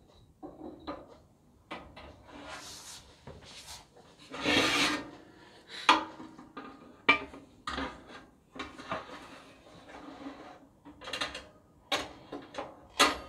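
Wooden pen blanks knocking on a wire oven rack, then the metal rack scraping as it slides into a small toaster oven, about four to five seconds in, with sharp metal clicks and clatters from a thin oven tray and the oven door near the end.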